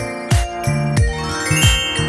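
Background music with a steady beat about every two-thirds of a second and bright bell-like tones running upward in pitch in the middle.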